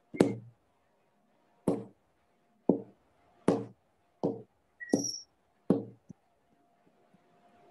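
About seven sharp knocks or taps at irregular intervals, each cut off short with dead silence between, heard over a video call's audio.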